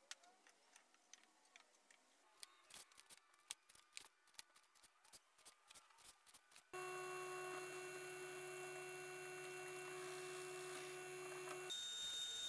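Faint light clicks and taps from handling and marking a plywood drum shell. About halfway through, a benchtop drill press's electric motor starts abruptly and runs steadily with a whine. Near the end its tone changes abruptly, with a stronger high whine.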